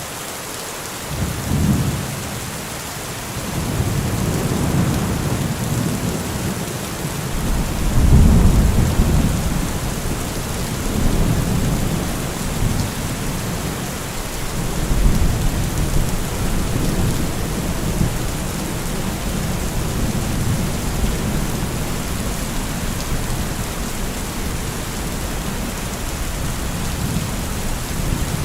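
Steady heavy rain hissing, with rolling thunder rumbling underneath. The thunder swells in waves: a first rumble about a second and a half in, the loudest peal about eight seconds in, another around fifteen seconds, then a lower continuing rumble.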